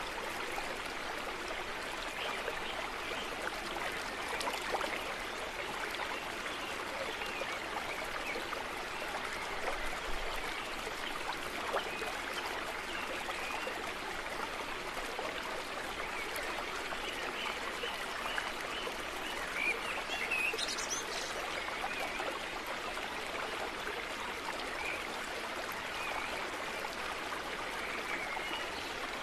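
Steady running water like a flowing stream, an even rushing with a few faint high chirps over it.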